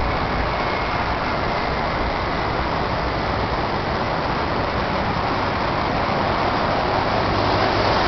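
Steady wash of city road traffic with no single vehicle standing out, growing slightly louder near the end.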